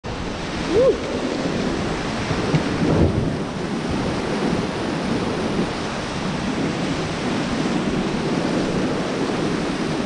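White-water river rapids rushing around an inflatable raft, a loud steady wash of water with wind on the microphone. A brief rising-and-falling tone under a second in and a thud around three seconds stand out over it.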